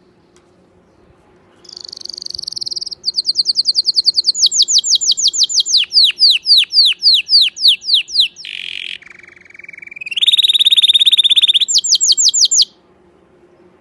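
Domestic canary singing one long, loud song phrase that starts about two seconds in. It runs through rapid trills, a series of slower falling whistles, a harsh note and a steady lower note, then another fast trill, and stops abruptly about a second before the end.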